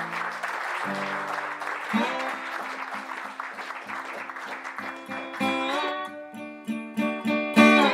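Applause fading out as acoustic guitar music comes in: single picked notes at first, then louder strummed chords from a little past halfway.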